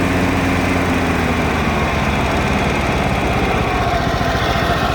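19 hp Kohler engine of a Toro TimeCutter Z4200 zero-turn mower being throttled down: its pitch drops over the first second or so, then it settles into a smooth, steady idle.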